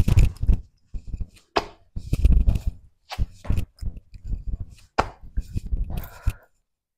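A series of irregular thuds and slaps from burpees: hands and sneakered feet landing on a hard concrete floor as the body drops to a plank, kicks back and jumps up, with clothing rustling against a clipped-on microphone.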